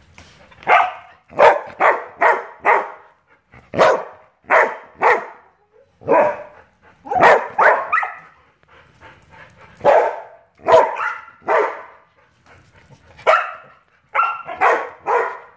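A dog barking in quick runs of three to five short barks, about twenty in all, with brief pauses between the runs: vocalizing back when asked what the other dog did.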